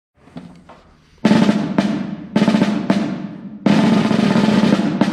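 Snare drum played: a few soft taps, then four loud accented strokes about half a second apart, then a sustained roll starting about three and a half seconds in that fades near the end.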